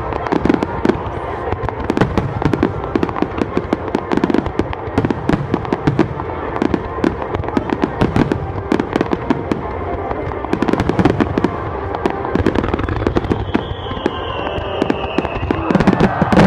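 Aerial fireworks going off in quick succession: a dense run of bangs and crackles, with a whistling tone gliding slightly downward about thirteen seconds in and a louder burst near the end.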